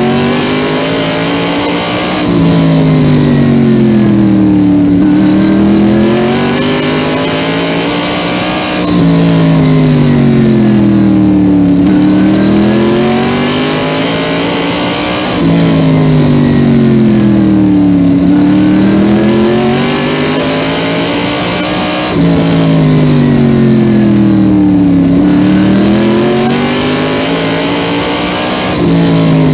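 SK modified race car's engine at racing speed, heard from inside the cockpit. Its pitch falls and rises in a regular cycle about every six and a half seconds as the car laps the short oval, and it gets suddenly louder once in each cycle.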